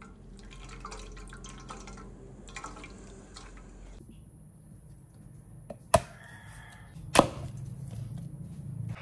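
Blended pandan juice dripping and squelching through a mesh strainer into a steel bowl as the wet pulp is squeezed by hand. In the second half, two sharp knocks about a second apart: a kitchen knife chopping through a whole cassava root onto a wooden cutting board.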